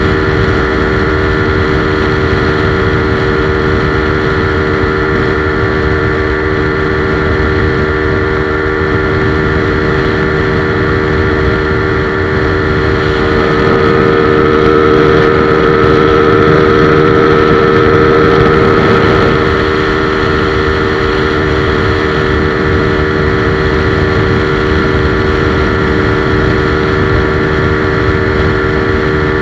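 Modified motorcycle engine held at full throttle, running at steady high revs with road and wind noise. About halfway through it grows louder for several seconds, then settles back to the same steady pitch.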